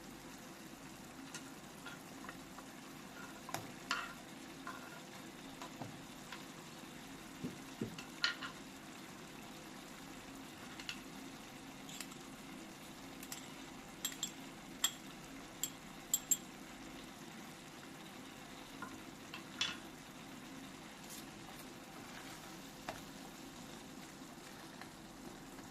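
Food frying quietly in a pan with a steady sizzle, while a utensil stirs it with scattered light clicks and taps.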